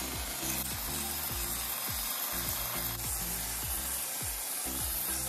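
Handheld powered belt file sanding the inside edges of a small wooden frame, a steady rasping grind, with background music underneath.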